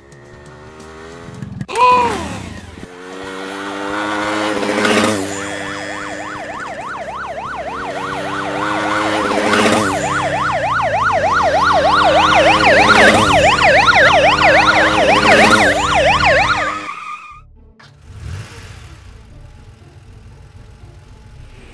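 Police siren sound effect wailing in a fast up-and-down yelp over a steady engine hum, growing louder and then cutting off about 17 seconds in, leaving quieter vehicle noise. A short, loud honk with a falling pitch comes about two seconds in.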